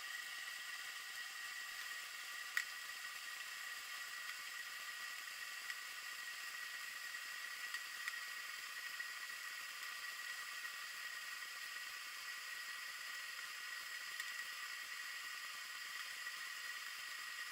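Steady hiss picked up by a submerged underwater camera, with a faint high steady tone and a few scattered faint clicks, the sharpest about two and a half seconds in.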